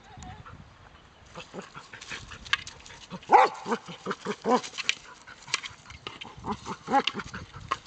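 Border collie giving short, excited yelps and whines, in bunches about three seconds in and again near the end, with rustling and clicking in dry leaves as it works the toy.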